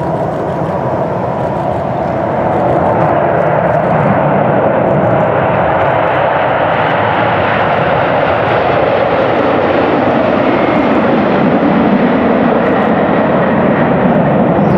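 McDonnell Douglas MD-11 freighter's three jet engines at takeoff power: a steady, broad roar that grows louder about two seconds in and holds as the jet rolls, lifts off and climbs away.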